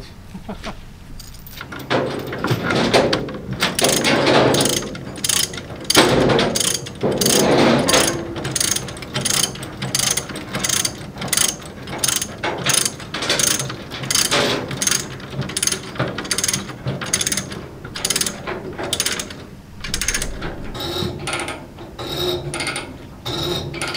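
Ratchet tie-down being cranked tight to secure a load on a trailer, its pawl clicking about twice a second in runs.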